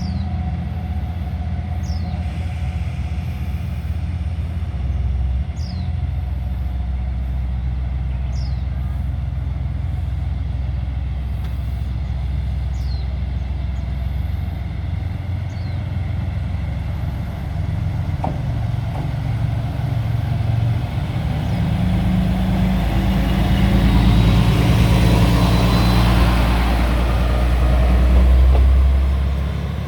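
Diesel railcar engine running with a steady low throb; from about 22 seconds in it grows louder, with a rising rush of noise that peaks near the end as the train powers up.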